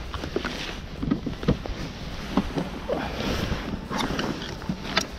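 Handling noise: a jacket sleeve rustling and brushing against a body-worn camera, with scattered light knocks and taps as hands work over the boat's fittings, over a steady low rumble.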